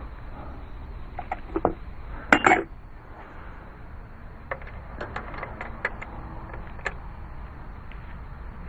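Scattered metallic clinks and taps of a tool and a hose fitting being handled while a power steering high-pressure hose fitting is worked by hand. The loudest cluster comes about two and a half seconds in, with a few lighter ticks later.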